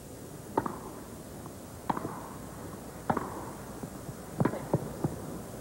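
Tennis rally: racquets strike the ball about every 1.2 seconds, each hit a sharp pop with a brief ring, with fainter bounces and footfalls between and a quicker run of knocks near the end.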